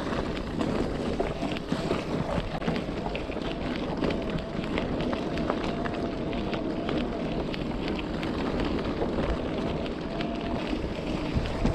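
E-bike riding over a rough unsurfaced track: tyres crunching and rattling with many small clicks, a faint steady whine from the motor, and wind on the microphone.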